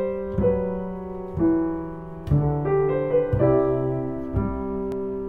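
Background piano music: slow chords struck about once a second and left to ring out, with a few quicker notes near the middle.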